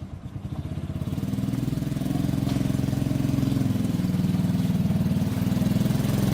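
An engine running with a fast pulsing beat. It grows louder over the first second or so, then holds steady with small shifts in pitch.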